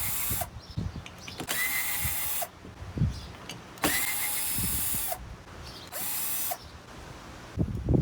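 Cordless drill/driver spinning up in four short runs, each rising to speed and winding down, backing out the bolts on a mower's back plate, with light clinks between the runs.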